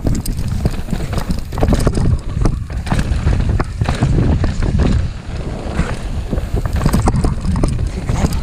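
Mountain bike descending a rough trail at speed: wind buffeting the microphone as a loud low rumble, with tyres running over stones and the bike rattling in quick, irregular knocks.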